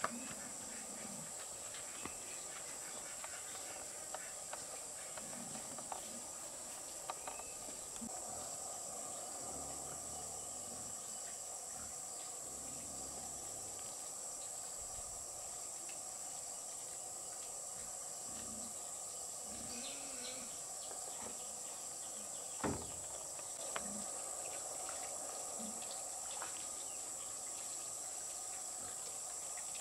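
Steady high-pitched chorus of insects, with scattered light knocks and one sharper knock about 23 seconds in.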